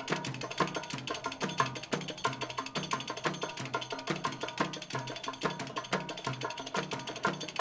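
Background music with a quick, even percussion beat of sharp woodblock-like hits over a repeating bass line.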